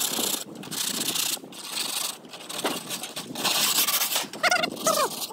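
Rough scraping strokes of a hand tool on a hard surface, several in a row with short pauses between them. Near the end a brief high, wavering whine with a bending pitch cuts in.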